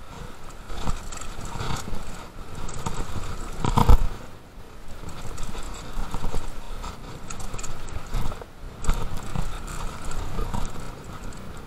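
Mountain bike clattering and rattling over a rough bike-park trail, with irregular knocks from bumps and a hard jolt about four seconds in.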